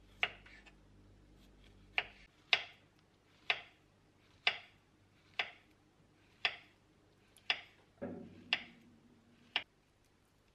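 A white ceramic knife slicing kiwi and banana on a wooden cutting board: the blade knocks sharply on the board at each cut, roughly once a second, about eleven times.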